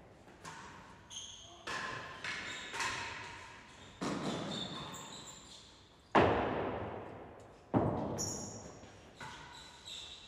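Real tennis rally: the ball struck by racquets and hitting the walls, floor and sloping penthouse roof, each hit a sharp crack that dies away slowly in the long echo of the enclosed court. The loudest hits come about six and about seven and a half seconds in.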